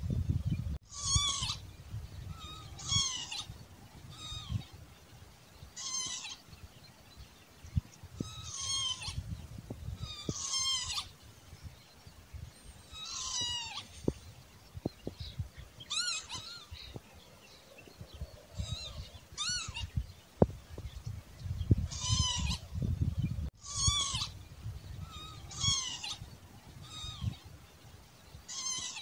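Northern lapwing calling over and over, its short slurred 'pee-wit' call given about a dozen times, roughly one every two seconds, over a low rumble.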